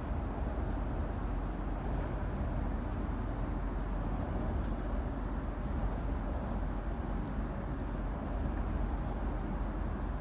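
Steady low rumble with an even wash of noise, with a few faint ticks from about halfway through.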